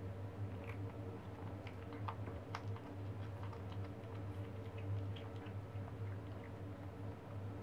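Kitten chewing on a dead newborn rabbit: scattered small, irregular clicks over a steady low hum.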